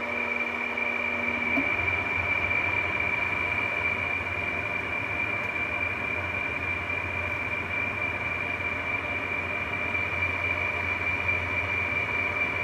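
Electrolux-built 2003 Frigidaire window air conditioner running on high: a steady fan rush with a constant high-pitched whine and a low hum. This is the noise of a fan motor whose bearings are shot. A lower hum stops about a second and a half in.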